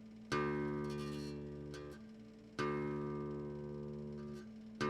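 Bajo quinto, the thicker string of its D course plucked open twice, each note ringing for about two seconds before it is damped, with a third pluck right at the end. The string is sounded as a reference pitch for tuning.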